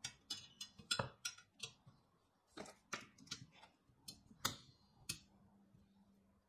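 A string of sharp metallic clicks and clinks as bent 20x5mm mild steel flat-bar chair-leg pieces are handled against each other and a pair of locking pliers is clamped onto them. The clicks are loudest about a second in and again about four and a half seconds in, and stop a little after five seconds.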